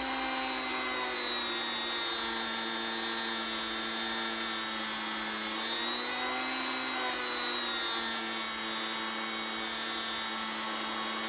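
A vise-mounted electric rotary tool running at low speed with a felt polishing wheel, as a stainless steel watch bracelet link is held against the wheel with polishing compound. It makes a steady motor hum whose pitch dips slightly and recovers a few times.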